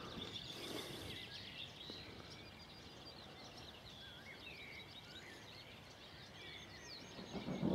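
Faint birdsong from small songbirds, among them a yellowhammer, with many short chirps over a soft outdoor hiss. Near the end a low rumble of distant thunder begins to swell.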